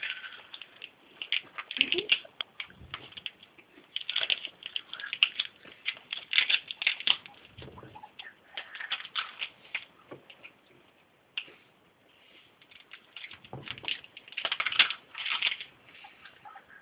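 Guinea pig crunching dry food pellets and flakes from its bowl: bursts of rapid crisp clicks and crackles with short pauses between mouthfuls, and now and then a dull bump.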